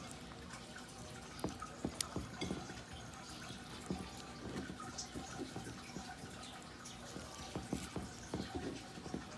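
Irregular wet squelches and small clicks of fingers pushing sliced onion and tomato into the belly cavity of a raw whole tuna on a plate.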